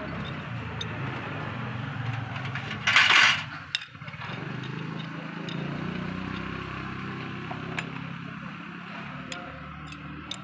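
Motorcycle clutch plates, friction plates and steel plates, being stacked by hand onto the clutch hub: light metallic clinks and clicks, with one short loud scraping rattle about three seconds in. A steady low hum runs underneath.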